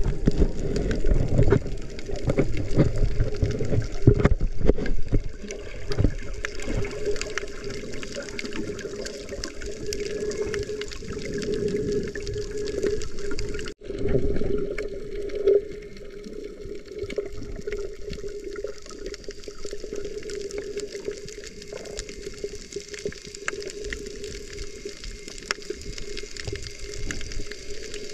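Underwater sound through a snorkeler's camera: water swishing and gurgling around the microphone, with many scattered small clicks and crackles. It is louder in the first half, breaks off for an instant about halfway through, then goes on more quietly.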